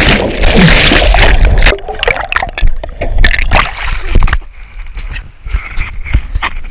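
Water splashing and sloshing around a canoe. A loud rushing noise with heavy rumble fills the first second and a half or so, then gives way to scattered sharp knocks and quieter splashing.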